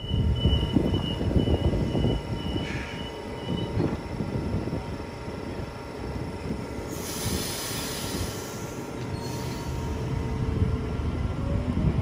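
Sydney Trains double-deck electric train moving along the platform, its wheels rumbling on the rails. A thin, steady wheel squeal runs through the first three or four seconds, and a hiss rises and falls twice around the middle.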